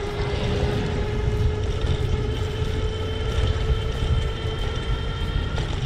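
Electric bike's motor whining at a steady pitch while riding, over a low rumble of wind on the microphone and road noise.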